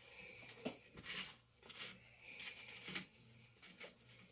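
Faint, scattered crackles and light clicks as fingers break up and pick at crumbly pieces of freeze-dried ice cream on a paper plate.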